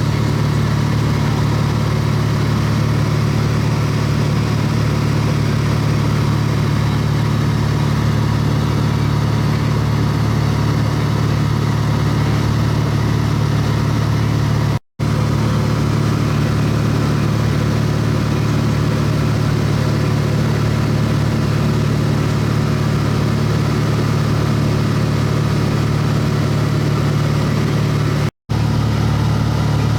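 Airplane engine running steadily, heard from inside the cabin as a loud, even drone with a strong low hum. The sound drops out for an instant twice, about halfway and near the end.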